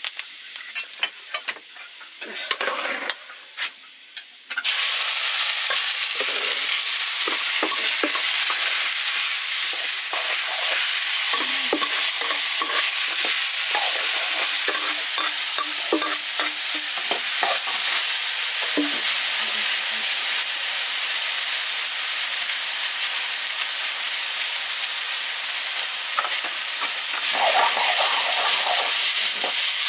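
Cooked rice frying in hot oil in a wok. The first few seconds are quieter, with a few light clicks. About five seconds in, a loud, steady sizzle sets in, and a metal ladle scrapes and knocks against the wok as the rice is stirred.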